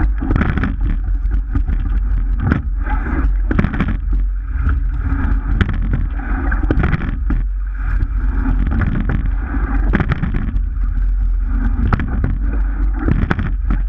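Rowing shell underway: water rushing along the hull over a steady low rumble, with clusters of knocks from the oars and oarlocks about every three seconds, one cluster per stroke.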